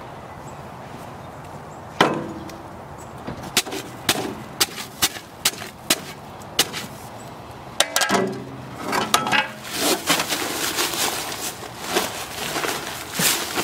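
A shovel blade chopping down into a paper bag of Quikrete concrete mix lying in a wheelbarrow: a series of sharp, irregular strikes that slit the bag open. Near the end the paper bag rustles and crinkles as it is lifted and the dry mix starts to spill out.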